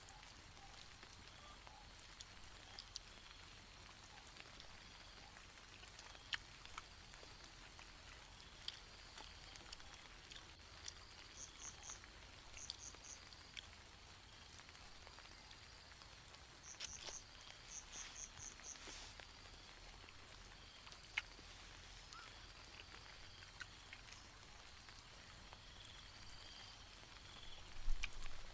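Faint rain: scattered drops ticking on the tent, with short bursts of high chirping twice in the middle and a cluster of louder knocks near the end.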